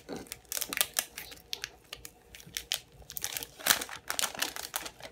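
Wrapper and cardboard sleeve of a milk chocolate bar crinkling and rustling as the bar is slid out and the wrapper is peeled open, in quick irregular crackles and ticks.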